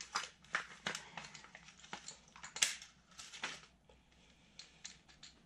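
Pages of a paper instruction booklet being handled and turned: a quick run of crinkles and rustles that thins out after about three and a half seconds.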